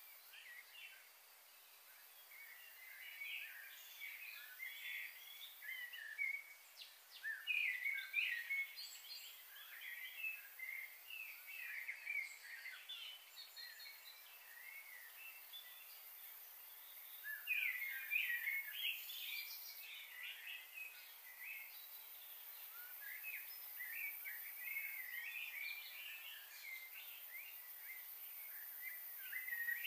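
Small birds chirping and twittering in a busy, overlapping chorus, louder in spells about eight and eighteen seconds in.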